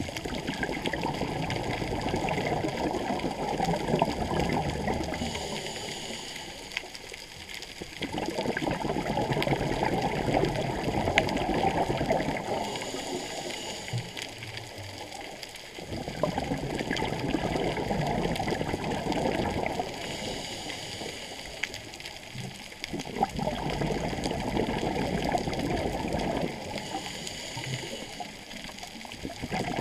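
Scuba diver breathing through a regulator underwater. Several seconds of bubbling exhalation alternate with a short, thinner hissing inhale, about once every seven seconds; there are four exhalations.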